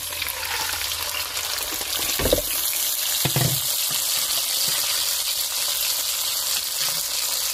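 Soy-and-vinegar sauce with sliced onions poured into a hot oiled non-stick pan, hitting the oil and sizzling steadily, with two dull knocks about two and three seconds in.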